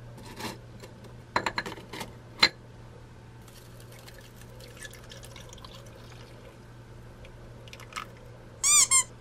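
Bear-shaped ice cubes clinking against ice in a glass, a few sharp clinks in the first couple of seconds, then milk poured over them, a soft trickle. Near the end, two short high-pitched squeaks.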